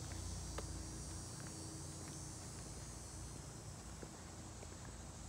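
Outdoor ambience: a steady high-pitched insect chorus over a low, steady rumble, with a few faint ticks.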